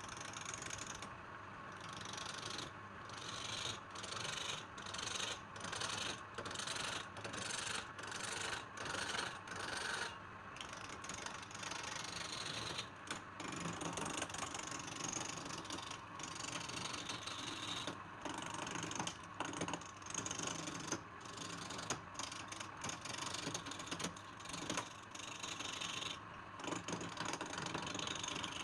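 A turning tool scraping and cutting wood on a spinning wood lathe. At first it goes in quick repeated strokes, about every half second or so, then in a more continuous, uneven scrape.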